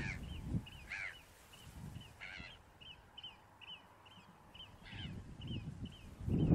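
Birds calling: a steady string of short, high call notes about three a second, with a few louder, harsher calls among them. A low rumble swells near the end.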